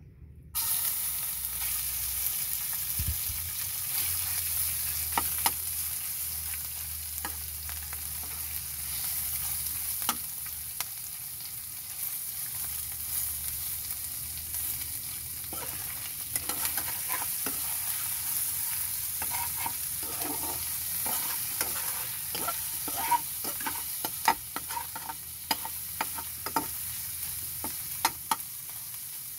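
Raw fatty pork cubes frying with a steady sizzle in hot oil in a wok, starting abruptly about half a second in. A metal spatula stirs them, scraping and clicking against the pan, more often in the second half.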